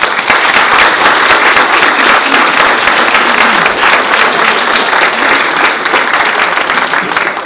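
Loud applause from a room full of people clapping, dense and steady throughout.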